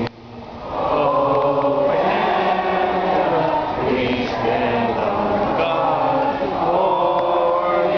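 Many voices singing together in a slow, drawn-out chant with long held notes. The sound drops out abruptly at the very start and swells back within about a second.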